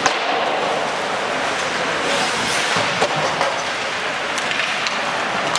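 Ice hockey game in play: a steady noisy hiss of the rink with several sharp clacks, the strongest right at the start and about three seconds in.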